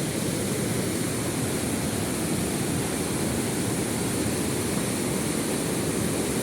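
Fast, turbulent river water rushing steadily with a deep, even rush.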